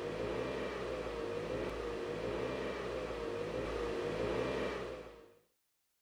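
A car's engine running steadily as the car pulls up slowly, with a wavering hum over a low rumble, fading out about five seconds in.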